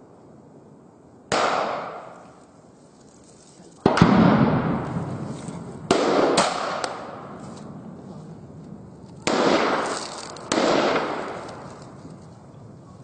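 Gunfire in a firefight: about eight sharp shots, single and in quick pairs, each trailing a long echo of about a second. The loudest comes about four seconds in.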